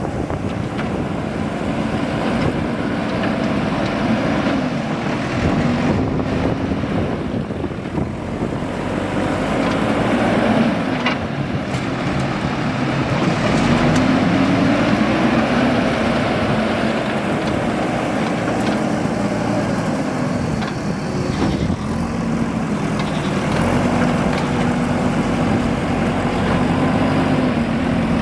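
JCB 3DX backhoe loader's diesel engine running under load, its pitch rising and falling every few seconds as the hydraulics work the digging and loading.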